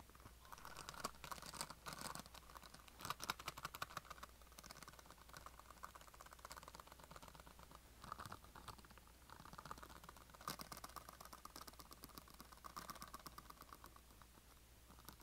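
Fingernails tapping rapidly on a box of art pens, soft clicks coming in quick flurries.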